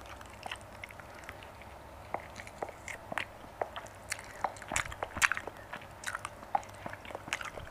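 Close-miked chewing of juicy grilled marinated mutton eaten by hand: many short, irregular mouth clicks and smacks as the meat is bitten and chewed.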